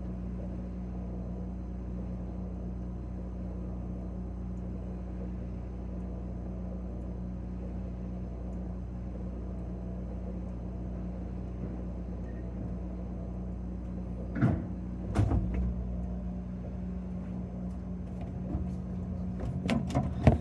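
Steady low hum of a running refrigerator, heard from inside the fridge. Two knocks come about three-quarters of the way through, and a cluster of louder knocks and bumps near the end.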